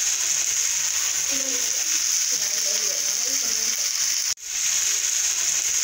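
Steady crackling sizzle from a sandwich on a hot grill pan. It cuts out abruptly about four and a half seconds in and comes straight back.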